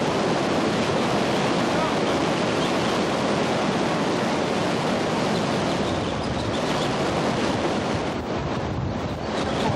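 Steady rushing roar of water pouring through Folsom Dam's failed spillway gate, thinning slightly in the last couple of seconds.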